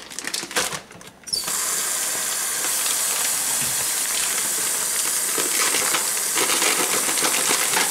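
A few light clicks and rustles, then about a second and a half in a steady hiss starts and holds at an even level.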